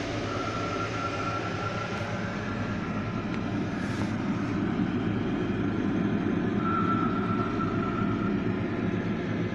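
Steady low drone of a fishing trawler's engine and machinery heard inside the wheelhouse, with a thin high whine that comes in twice, once early on and again past the middle.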